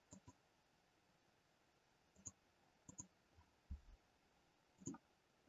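Faint, scattered clicks of a computer mouse against near silence: a few around the start, a pair about three seconds in, and one more near the end, with a soft low thump just before four seconds.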